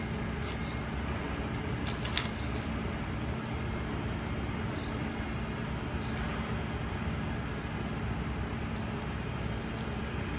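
Steady low rumble of urban background noise with a constant hum, and a couple of faint clicks about two seconds in.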